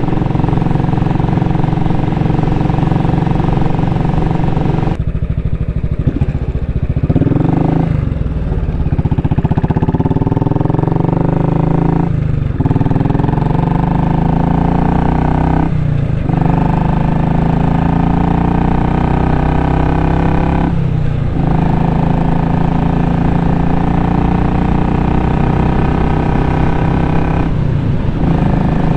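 Royal Enfield Classic 500's single-cylinder engine and exhaust under way, accelerating. The pitch climbs in each gear and breaks off briefly at each of several gear changes.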